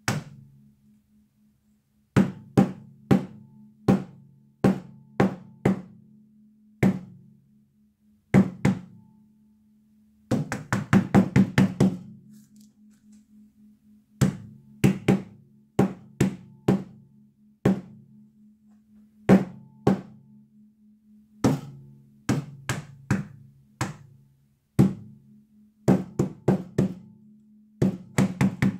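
Tack hammer striking a canvas panel coated in wet acrylic paint, with single blows at irregular intervals and a quick run of a dozen or so about ten seconds in. Each strike sets off a low, gong-like ring that dies away, which the painter puts down to wires hung up nearby.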